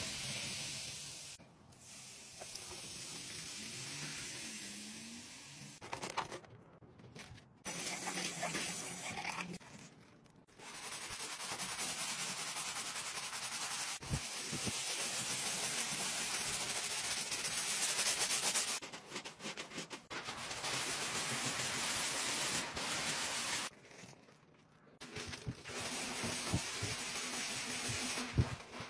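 Sponge scrubbing wet ceramic wall tiles: a rough, steady rubbing in long stretches of several seconds, broken by short pauses. At the start, liquid is poured over cleaning powder around the tub drain.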